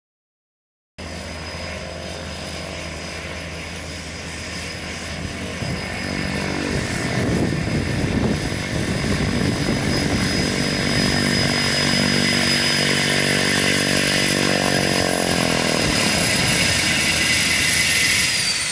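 Cessna 208 Grand Caravan's single turboprop engine running as the plane taxis: a steady high turbine whine over the propeller's drone, starting about a second in and growing louder from about six seconds in. Near the end the whine drops in pitch.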